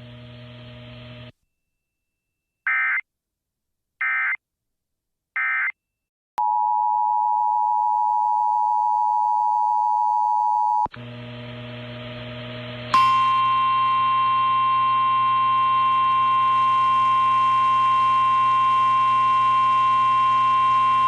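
Emergency Alert System tones: three short screeching SAME data bursts, then a steady two-tone attention signal lasting about four seconds. After a brief stretch of radio hum, a long steady NOAA Weather Radio 1050 Hz warning alarm tone sounds over static, announcing the next warning.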